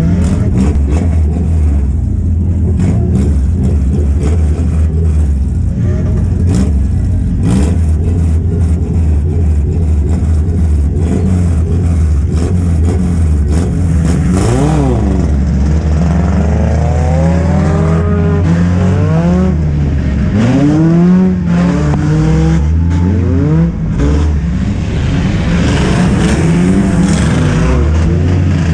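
Four-cylinder race car engine heard from inside the cabin. It idles steadily for about half the time, then revs up and down again and again as the car gets under way.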